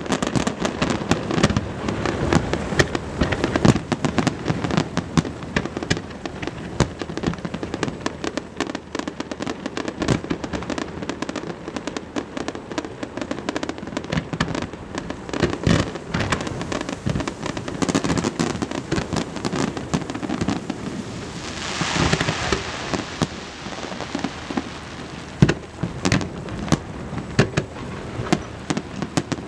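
Fireworks going off in a rapid, irregular stream of bangs and crackling pops, with a denser stretch of crackle a little past two-thirds of the way through.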